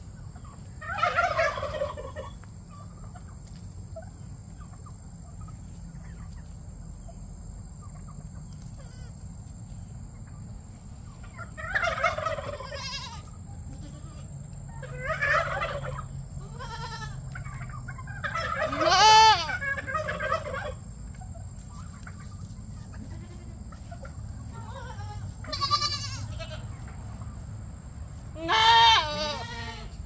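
Small goats bleating, about seven wavering calls of a second or so each, spaced irregularly, the loudest about two-thirds of the way through and two close together near the end.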